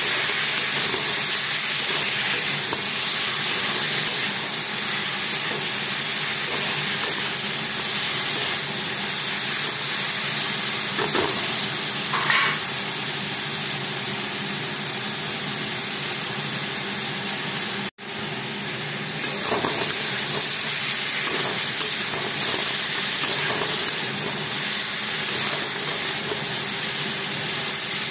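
Ridge gourd, potato and ground masala paste sizzling steadily in oil in a steel kadai, stirred now and then with a spatula. The sound cuts out for an instant about two-thirds of the way through.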